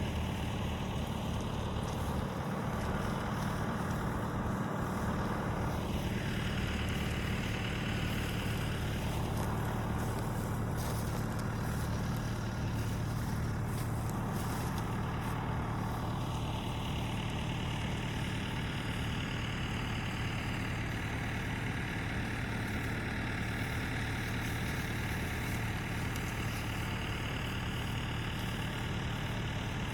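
Truck engine running steadily, a low even hum.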